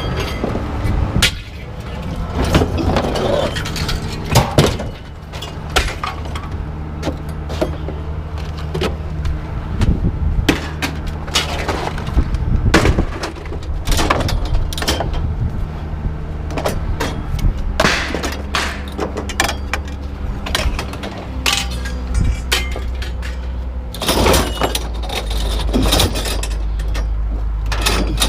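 Scrap metal clanking and crashing as pieces are thrown off a truck onto a pile, in many separate hits at uneven intervals, over a steady low engine hum.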